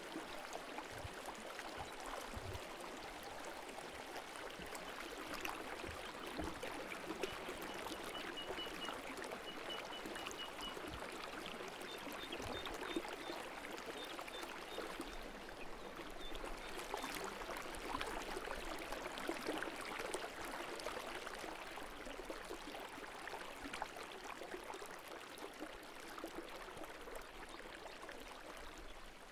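Small stream of water trickling and gurgling steadily over rocks into a pool. Partway through, a faint run of short, high, evenly spaced peeps sounds over it.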